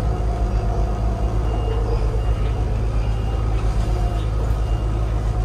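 Cabin noise of a battery-electric low-floor city bus on the move: a steady low rumble of tyres and road, with a few short high beeps from the bus in the middle stretch.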